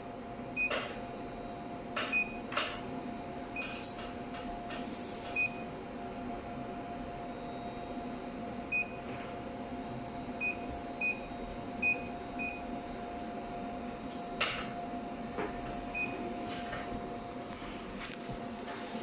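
Touchscreen control panel of a glue dispensing machine giving a short high beep at each key press as settings are keyed in, about ten beeps at irregular intervals, some with sharp taps or clicks. A steady low hum runs underneath.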